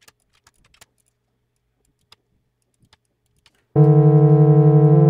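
A few faint clicks, then about three and a half seconds in a monophonic software synthesizer patched in Usine Hollyhock starts a loud sustained note, rich in overtones. The note has a fast, even pulsing in its level, from its doubled oscillator with the second one offset in pitch.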